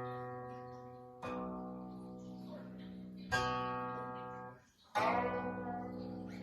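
Guqin (seven-string Chinese zither) playing slow, single plucked notes, each left to ring and fade, with new notes about a second, three seconds and five seconds in; the last note slides in pitch as the left hand glides along the string.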